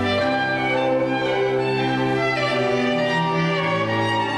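Background music played by bowed strings: slow, sustained notes that change every second or two.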